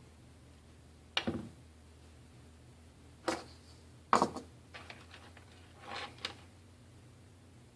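Small hard tools and phone parts clicking and tapping on a repair bench: a handful of sharp clicks spread over several seconds, the loudest about four seconds in, with a few lighter ticks after it.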